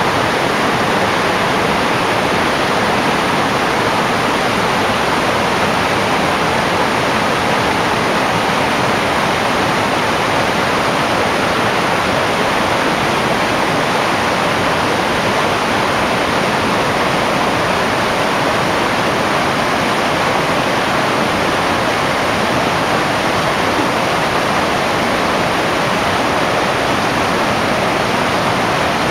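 Rocky brook rushing over rapids and a small waterfall: a loud, steady rush of water with no change.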